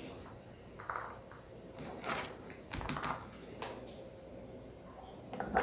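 A few light knocks and clatters of kitchen utensils and containers being handled, spaced a second or so apart, while corn is loaded into a blender; the blender is not running.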